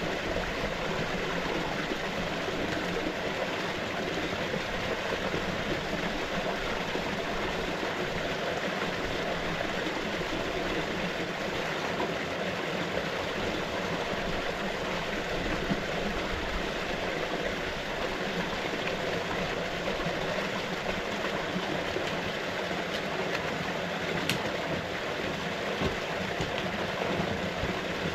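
Small cascade of water spilling from under a boulder into a pool, a steady splashing rush; a single sharp click near the end.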